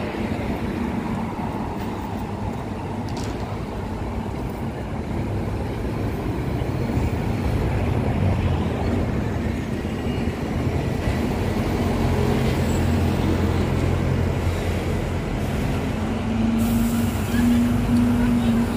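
Busy street traffic, with a double-decker bus engine running close by; its low hum grows louder over the second half. Passers-by talk in the background.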